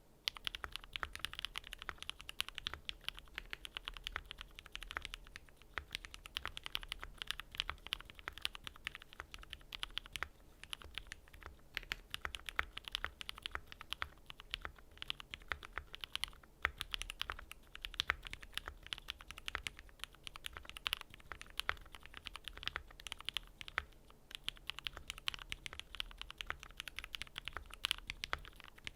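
Steady, irregular typing on a Voice65 mechanical keyboard with lubed Cherry MX Black Hyperglide linear switches in a polycarbonate plate, its case packed with foam and dampeners, under GMK keycaps.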